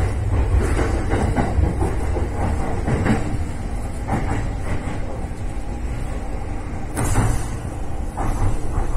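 Electric commuter train running, heard from inside: a steady low rumble of wheels and running gear, with irregular knocks as the wheels pass over rail joints and points, the sharpest about seven seconds in.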